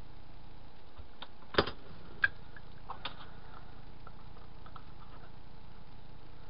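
A few light clicks and taps of styrene plastic pieces being handled and fitted together on the bench, the sharpest about a second and a half in and another just after two seconds, with smaller ticks after. A steady background hum runs underneath.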